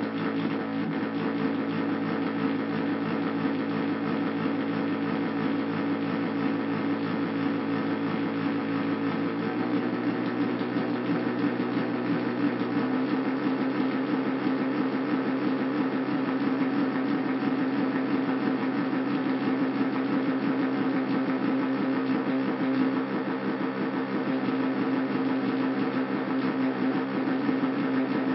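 Handmade Arduino drone synthesizer sounding a sustained drone of several stacked tones with a grainy, fluttering texture. The pitches step twice, about ten and about thirteen seconds in.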